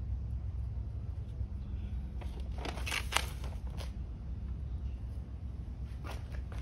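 Crackling, crunching rustle from hands working among potted plants, soil and fertilizer, loudest for about two seconds in the middle, with a few fainter crackles near the end. A steady low rumble sits underneath.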